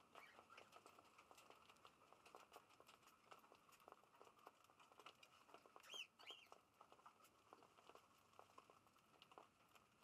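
Cockatiels pecking at loose seed on an aviary floor: a faint, steady patter of many small clicks, with two short bird chirps about six seconds in.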